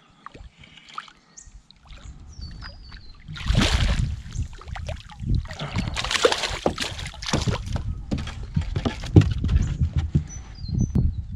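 Hooked flathead thrashing and splashing at the surface beside the boat as it is grabbed by hand and lifted out, then flopping on the boat deck. The splashing starts suddenly a few seconds in and runs on in loud, irregular bursts.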